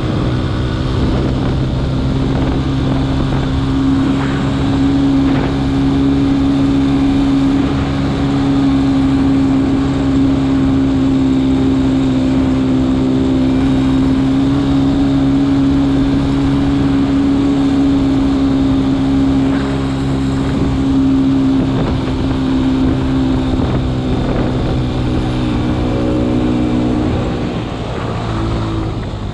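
A vehicle's engine running at steady revs while driving, its pitch sagging as the revs drop near the end.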